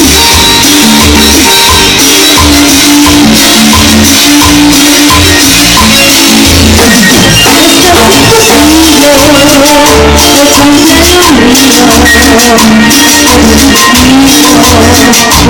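Loud Latin dance music with a steady bass beat, shaker and tambourine-like percussion and a wavering melody line.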